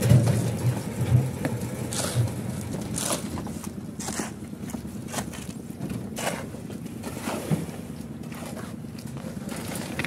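Engine machinery on a concrete pour runs steadily. Wet concrete slides heavily out of a steel hopper into a steel wheelbarrow at the start, followed by scattered knocks and scrapes of the wheelbarrow and tools.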